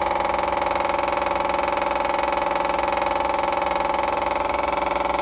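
Electric fuel pump of an MEP-803A diesel generator running steadily to prime a dry fuel system after a filter change: a constant mechanical buzz with a fine, fast pulse.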